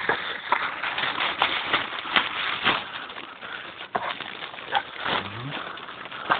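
Footsteps and rustling of undergrowth, with irregular crunches, knocks and handling noise, as someone picks their way over rocky, overgrown ground.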